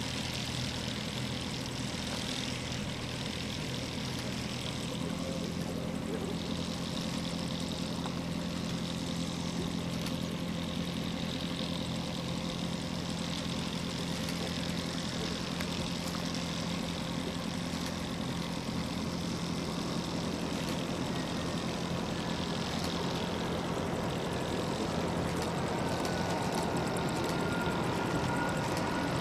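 Steady jet drone from an Airbus A340-300's four CFM56 engines on final approach, slowly growing louder as it nears. A high engine whine rises into hearing near the end.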